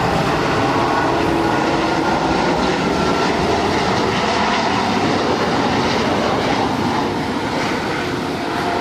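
Airbus A330 airliner's jet engines running loud and steady as it passes low on final approach with its landing gear down, a broad rumbling roar with a faint whine in it.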